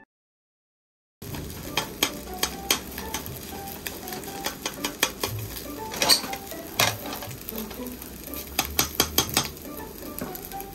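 Fried rice sizzling in a wok while a metal wok ladle scrapes and clanks against the pan as the rice is stirred and tossed, with frequent sharp clanks. It starts about a second in, after a moment of silence.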